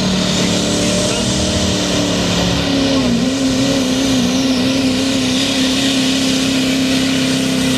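A hot rod semi truck's diesel engine running at full power, pulling a weight sled down a dirt track. The engine note stays loud and steady, wavering briefly in pitch midway through the pull.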